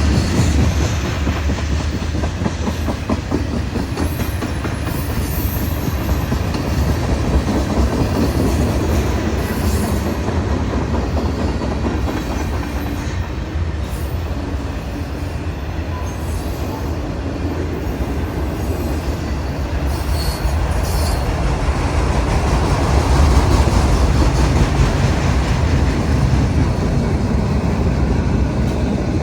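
Freight train cars rolling past on the CSX main line: a steady, loud rumble of steel wheels on the rails, with a rapid clatter running through it.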